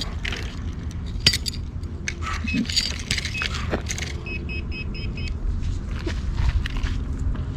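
Scraping and clinking of a search through hard dirt and gravel for a metal-detector target, with a quick run of five short electronic beeps from a metal detector about four seconds in.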